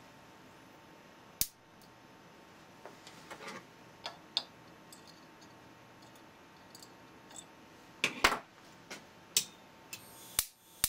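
Wire cutters snipping and bending the stiff wire of a makeshift spark gap on an ignitor circuit board, with a few sharp clicks and a loud cluster of clicks near the end. In the last half second the xenon lamp ignitor's spark gap starts firing: sharp snaps about twice a second, as the gap width is tuned for enough high-voltage output.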